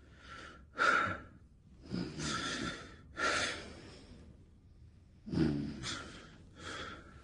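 A sleeping woman breathing heavily through her mouth: about six loud breaths in and out, two of them with a low snoring rasp.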